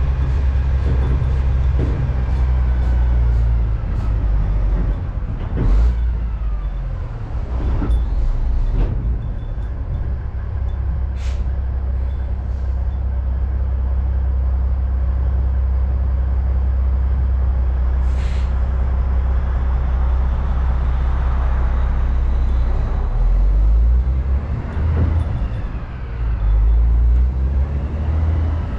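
Heavy truck driving over a gravel road: deep, steady engine and drivetrain rumble with knocks and rattles from the bumps. The engine pitch falls early on and changes again near the end as the truck slows. Two short hisses are heard in between.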